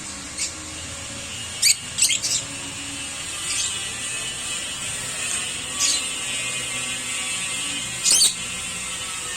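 Lovebirds giving short, sharp, high-pitched chirps every second or two, over a steady hiss.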